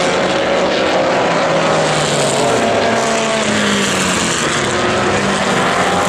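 Several historic Formula Vee racing cars with Volkswagen-based engines running at speed on a circuit, their engine notes overlapping and sliding up and down in pitch as they pass and change gear.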